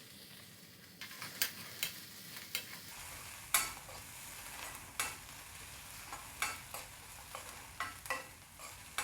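Cashew nuts frying in butter with onion, garlic and spring onion in a kadai: a soft sizzle under irregular scrapes and taps of a spatula stirring against the pan from about a second in.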